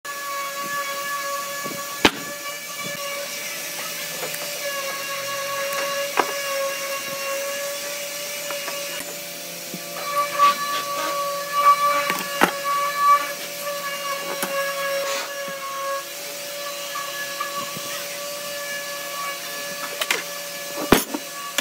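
A steady machine hum with a whine, as from an electric motor running, broken by a few sharp clicks and knocks as tools and wood are handled.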